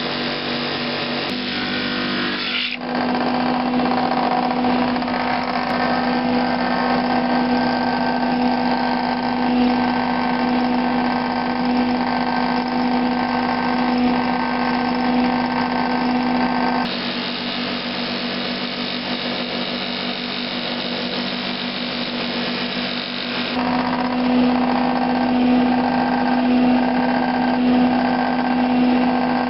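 Homemade drum sander running with a steady motor hum while a glued-up hardwood panel is fed under its sanding drum, the drum scuffing the wood. The noise gets louder about three seconds in, eases a little around seventeen seconds and rises again around twenty-four.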